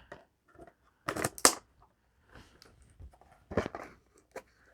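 Trading cards being handled: a few short, crisp snaps and rustles, two close together about a second in and another later.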